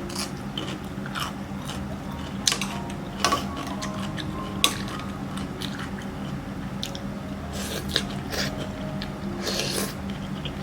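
Close-miked eating: crunchy bites and chewing of spicy food, with several sharp crunches at irregular moments over a faint low steady hum.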